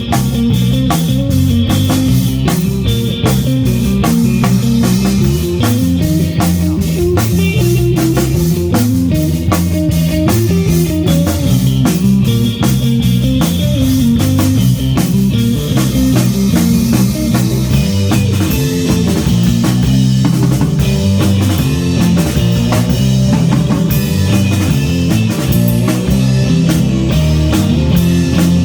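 Live band playing an instrumental rock tune on electric guitar, bass and drum kit, with a steady driving drum beat.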